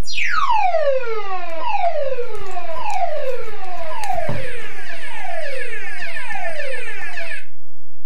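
Alarm system sounder going off in a series of falling sweeps, about one a second, triggered by the Texecom smoke detector under test. It cuts off suddenly near the end, with a single thump about halfway through.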